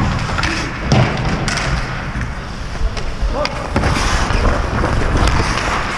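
Ice hockey play up close: skate blades scraping the ice and hockey sticks clacking against each other and the puck, with a few sharp knocks, the loudest about a second in.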